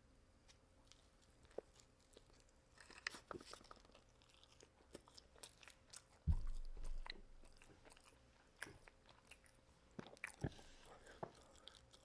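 Close-up chewing and crunching of fried fast food, with small wet mouth clicks. About six seconds in there is one dull low thump, louder than the rest.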